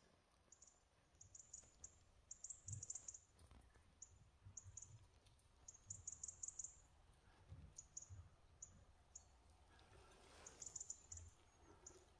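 Faint, very high-pitched chirping of small birds in short clusters of rapid notes, repeating irregularly over near silence.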